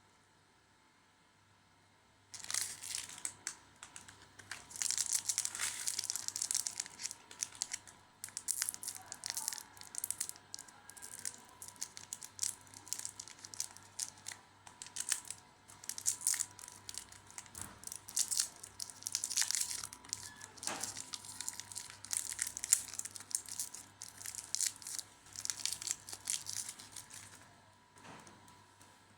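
Plastic snack packaging being crinkled and torn open. The crackling starts about two seconds in, comes in dense bursts with sharp snaps, and stops shortly before the end.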